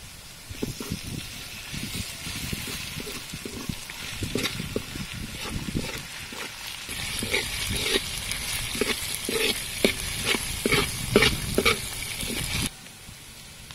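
Minced garlic and chopped chili sizzling in hot oil in a wok, stirred with a metal ladle that scrapes and knocks against the pan. The sizzling gets louder about seven seconds in, then cuts off abruptly near the end.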